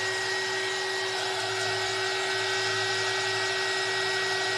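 Handheld embossing heat tool running: a steady whine over rushing air from its fan, as it heats friction-pen ink until the lines fade.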